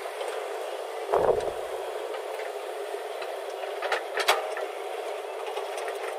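JCB 3DX backhoe loader at work: a steady engine drone, with a heavy thud about a second in and two sharp knocks close together around four seconds in.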